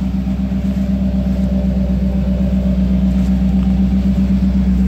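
V8 engine of a 1989 Jeep Wrangler running steadily, a deep hum with an even fast pulse.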